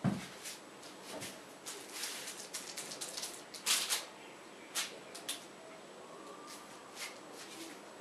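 A dull thump, then a run of short scratchy rustles and clicks, as of objects being handled, the loudest about four seconds in.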